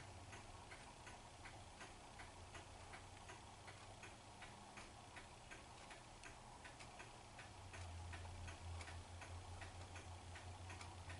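Faint, even ticking, about three ticks a second, over a low steady hum that grows a little louder about eight seconds in.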